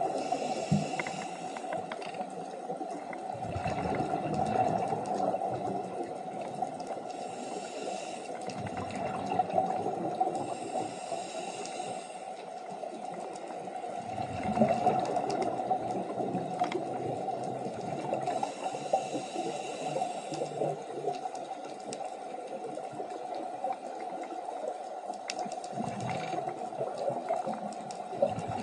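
Underwater sound on a scuba dive: bubbling and gurgling water over a steady drone, swelling every few seconds with the rumble of bursts of bubbles.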